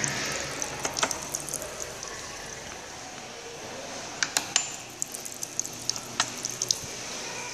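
Water running and splashing in a Kohler Dexter urinal after a flush, with sharp drips and splashes scattered through it, several close together about four seconds in.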